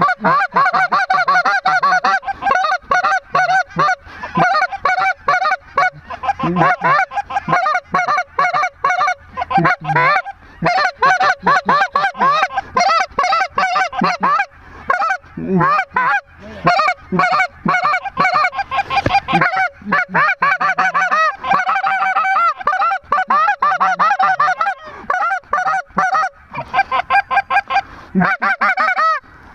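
Loud, nonstop honking of a large flock of lesser Canada geese overhead, mixed with hunters blowing goose calls to match them. Many calls overlap at once, with only a brief lull a little before the end.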